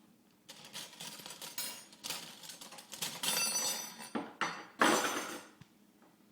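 Spoons clattering and clinking together as a child handles a pile of them, in a string of bursts with the loudest clatter about five seconds in.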